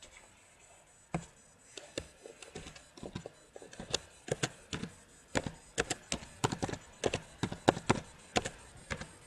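Typing on a computer keyboard: irregular key clicks, a few spaced out at first, then coming quickly from about four seconds in.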